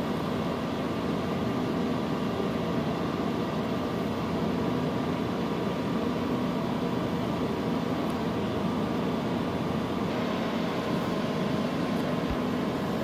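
Dell PowerEdge server's cooling fans running steadily with a faint hum while the server boots through its start-up self-test.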